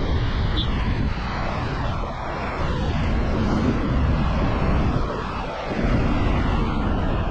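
Vehicle road noise: a steady, loud rumble of tyres, engine and wind from a car travelling on a highway, easing slightly twice.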